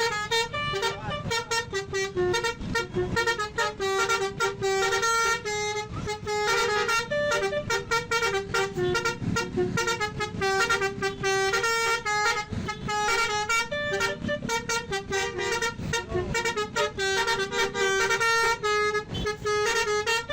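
Basuri 'telolet' musical horn on a bus, playing a fast tune of short notes that step up and down in pitch, sounding without a break and cutting off suddenly at the end.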